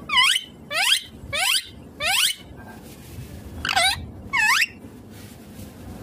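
Indian ringneck parakeet calling: six short, high calls, four in quick succession about every half second, then a pause and two more.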